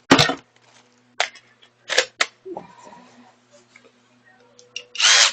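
A few sharp clicks and knocks of a tool being handled over a faint hum, then near the end a short loud burst from a power tool being triggered.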